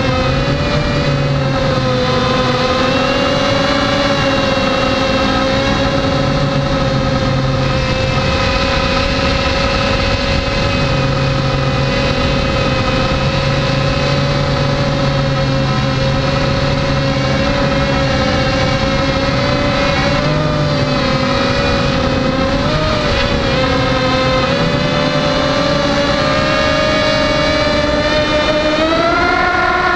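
Six small brushless motors (Tiger MN1806 2300kv) spinning GemFan 5x3 two-blade propellers on a hexacopter in flight: a steady, loud, pitched buzz that wavers slightly with throttle. It climbs in pitch near the end as the throttle goes up.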